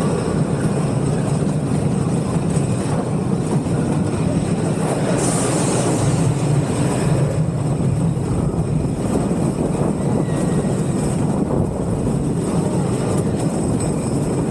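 Custom Coasters International wooden roller coaster train running at speed over its wooden track, a loud, steady rumble of wheels on the timber structure mixed with rushing air, heard from the front car.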